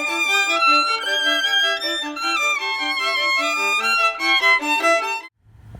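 Violin music playing a tune of short, quickly changing notes, which cuts off abruptly about five seconds in. A low steady hum starts just after, near the end.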